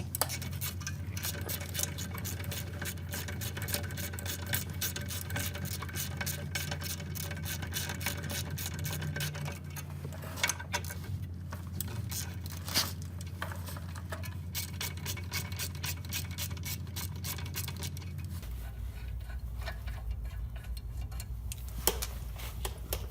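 Ratchet wrench clicking rapidly as the brake caliper's 10 mm bolts are backed out, over a steady low hum.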